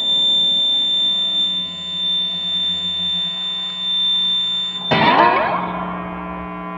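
Electric guitar through a small Fender combo amp, laid across the amp and feeding back: a steady, piercing high whistle over a bed of held drone tones, like an alarm. About five seconds in, the whistle cuts off in a burst of sliding, scraping string noise, and a lower steady drone carries on.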